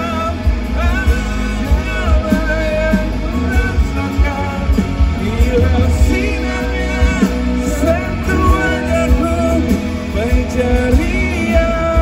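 Pop-rock band playing live, with electric and acoustic guitars, bass and drums and a sung melody over them, heavy in the low end.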